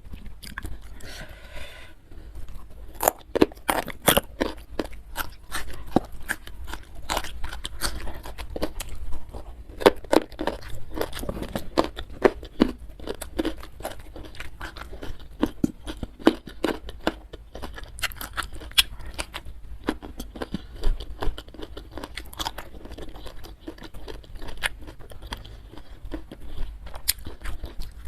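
Close-miked chewing of food, with irregular crunches and wet mouth clicks and smacks.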